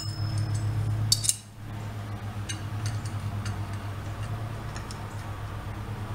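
Hand tools clinking on steel as a collet-type bearing puller is tightened inside a scooter's front wheel bearing so it expands and grips the bearing. There is a bright ringing clink about a second in, followed by scattered light clicks from the wrench and ratchet handles, over a steady low hum.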